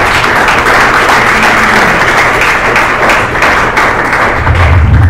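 Audience applauding steadily in a hall at the end of a talk, with a low rumble near the end.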